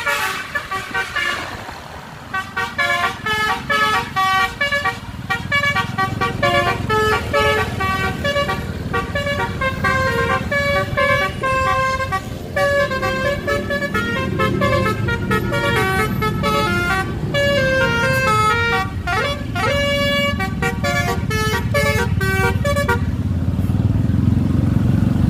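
Tour bus's basuri musical horn playing a rapid melody of short notes for about twenty seconds, then stopping a couple of seconds before the end, over the low rumble of bus engines.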